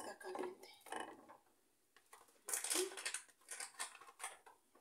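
Kitchen utensils clinking and scraping while food is handled, with a brief murmur of voice at the start and a busier run of clatter in the second half.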